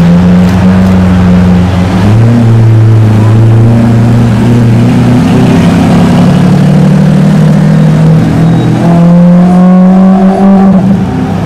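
Lamborghini Aventador SV's V12 engine running at low revs as the car crawls along, then revving with a rising pitch from about eight seconds in before dropping back near the end.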